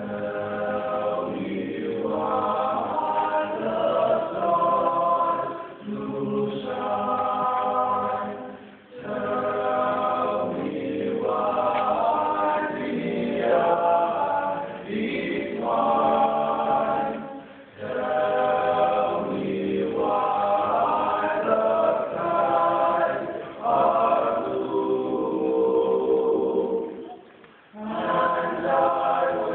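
Choir singing in long phrases, starting suddenly and breaking briefly about every eight to nine seconds.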